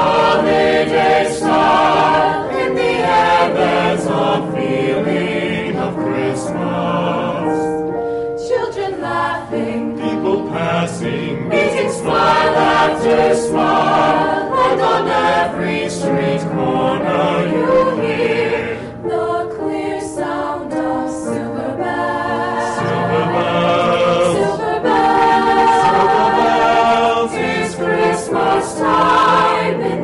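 High school choir singing a Christmas song, many voices together with the notes changing every second or so.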